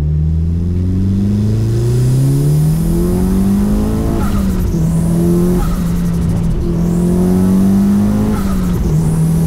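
Mitsubishi Lancer Evolution VI GSR's turbocharged 4G63 four-cylinder, heard from inside the cabin under hard acceleration. The engine pitch climbs for about four seconds and then drops suddenly at an upshift. It runs steadier after that, with a second drop at another shift near the end.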